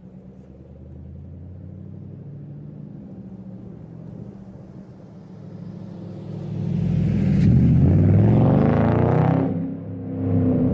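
2010 Ford Mustang GT's 4.6L V8 on a true dual exhaust with catalytic converters and no crossover pipe, idling steadily, then revved up and held for a few seconds about two-thirds of the way in. It drops back briefly and revs up again near the end.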